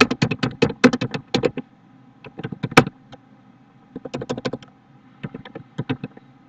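Typing on a computer keyboard: rapid key clicks in four short runs, with brief pauses between them.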